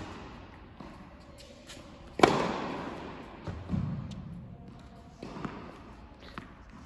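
Tennis racket striking the ball with a loud, sharp pop about two seconds in that rings on in a large indoor hall. A second, quieter strike comes about five seconds in, with light ball bounces and taps in between.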